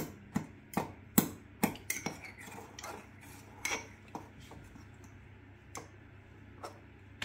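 A metal fork clinking against a ceramic mug as Oreo biscuits are mashed into milk. The strikes come about twice a second at first, then slow to a few scattered taps after about two seconds.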